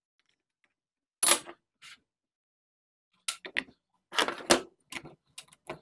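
Metal parts clanking as the side cover and guide bar are taken off a chainsaw: one sharp clack about a second in, then a run of short clinks and clatters in the second half.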